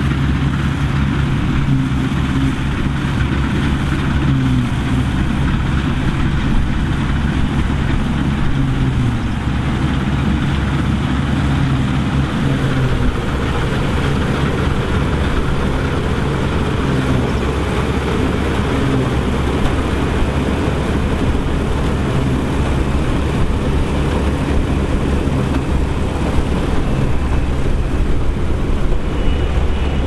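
Dronningborg D1200 combine harvester running under load while cutting and threshing barley: a steady engine note mixed with the even rumble of the harvesting machinery.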